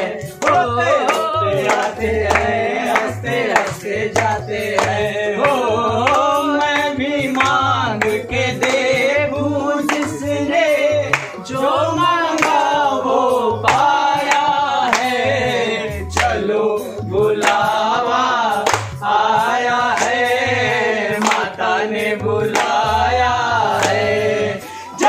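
Male voices singing a Hindu devotional bhajan in chorus, with rhythmic hand clapping and a steady low beat.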